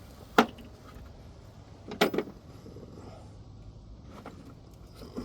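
Hand tools being handled: a few sharp metallic clinks as a 13 mm socket, extension and 3/8-inch-drive ratchet are picked up and fitted together. There is a single clink about half a second in and a quick cluster of two or three about two seconds in.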